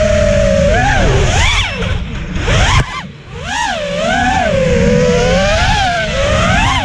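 FPV quadcopter's brushless motors and propellers whining, the pitch swooping up and down with the throttle. About three seconds in the whine cuts off briefly, then climbs back.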